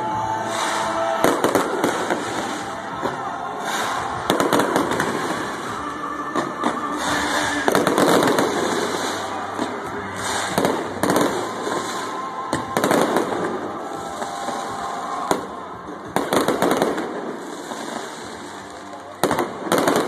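Aerial fireworks shells bursting overhead, an irregular string of sharp bangs and crackles, with crowd voices underneath.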